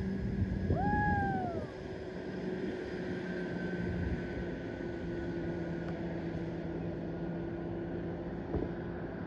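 Steady distant engine drone with a constant low hum over outdoor noise. About a second in, a single voice calls out briefly, rising then falling in pitch.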